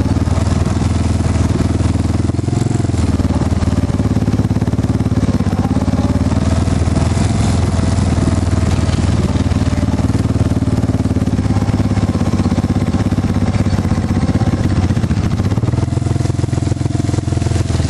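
ATV engine running steadily under riding on a trail, its pitch shifting a little about two and a half seconds in and again near the end as the throttle changes.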